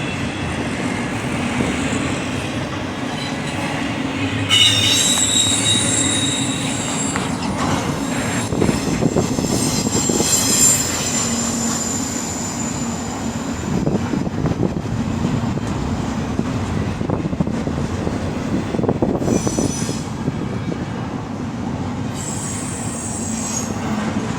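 Norfolk Southern freight cars rolling past with a steady low rumble, their steel wheels squealing against the rail. The high-pitched squeals come and go: strongest from about five to eleven seconds in, and again twice near the end.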